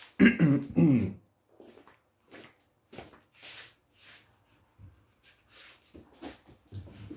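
Two short vocal sounds in the first second, the loudest part, then soft footsteps and clothing rustle as a person walks up and reaches to a table in a small room.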